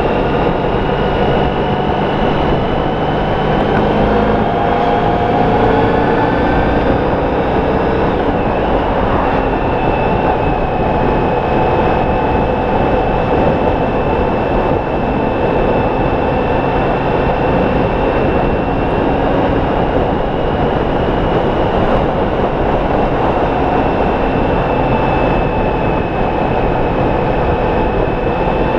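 Honda ST1300's V4 engine running at a steady cruise on the open road, its faint engine tones drifting gently up and down in pitch, under loud, constant wind and road noise.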